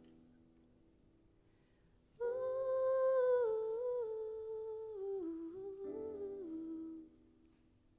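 Woman's voice humming a slow wordless melody in a small room, starting about two seconds in with held notes that step mostly downward and stopping about a second before the end.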